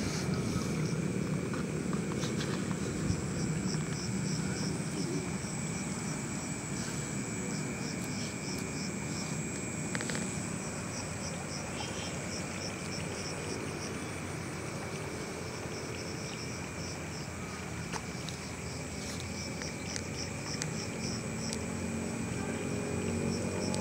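Night insects: a steady high trill and a cricket chirping in quick, even pulses, over a low steady rumble that fades in the middle and grows again near the end.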